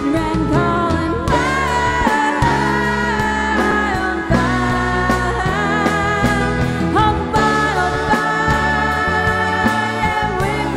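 Live country band playing, with a steady drum beat under sustained chords and pedal steel guitar notes sliding up and down between pitches.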